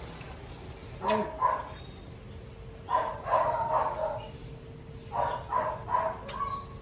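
A dog whining and yipping in three short bouts of high cries, over a faint steady hum.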